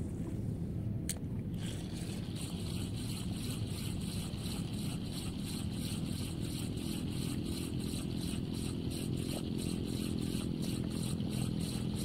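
Relix Cetus Attach 1000 spinning reel cranked on a steady lure retrieve, giving an even run of faint ticks about three times a second, after a sharp click about a second in as the bail closes. A steady low rumble runs underneath.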